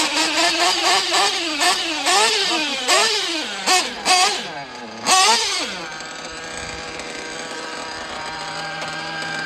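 Nitro RC off-road car's small glow-fuel engine being revved in quick throttle blips, about two a second, then settling to a steady idle about six seconds in.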